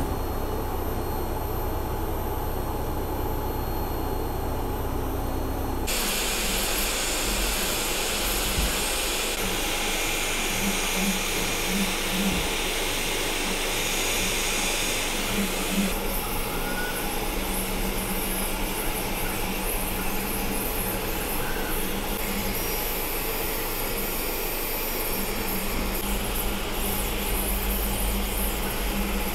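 Elegoo OrangeStorm Giga large-format FDM 3D printer running: a steady low hum for about six seconds, then an abrupt change to a brighter whir of fans and motors with short pitched blips as the printhead moves. The sound shifts in character a few more times.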